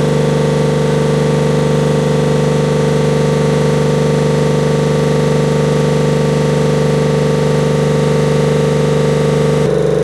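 Tanabe H-373 marine air compressor, driven by its electric motor, running steadily under test with a loud, even mechanical drone. Its tone shifts abruptly just before the end.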